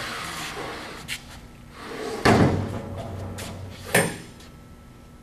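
Heavy planer cutter head slid back into its housing on the machine: a scraping slide, then a loud thud a little over two seconds in as it seats, and a sharp metallic clank about four seconds in.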